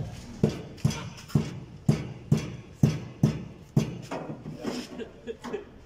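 Regular low thumps, about two a second, strongest for the first four seconds and then weaker.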